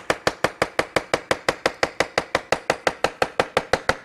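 A Chinese chef's cleaver chopping fast and steadily on a cutting board, an even rhythm of about nine crisp knocks a second.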